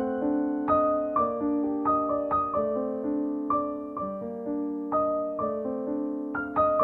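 Background piano music: a slow melody of single struck notes over held lower notes.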